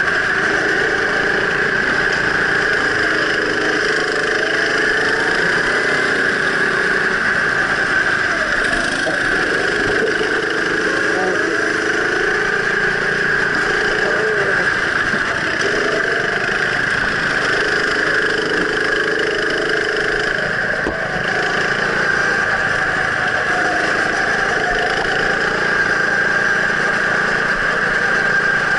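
Go-kart engine heard from on board the kart, running hard through laps, its pitch rising and falling over and over as the driver goes on and off the throttle through the corners.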